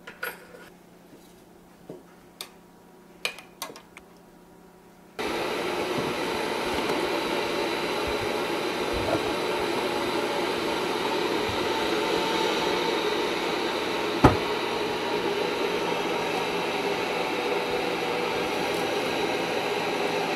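A few light clicks and knocks of kitchenware being handled, then, about five seconds in, the steady rushing noise of a running kitchen appliance starts abruptly and holds.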